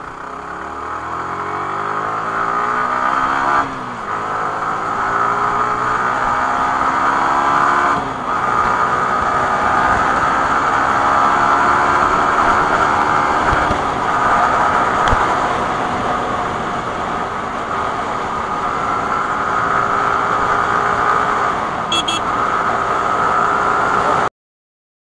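Yamaha R15 V3's 155 cc single-cylinder engine accelerating hard through the gears, its pitch rising, dropping at upshifts about four and eight seconds in, then climbing steadily. The sound cuts off suddenly near the end.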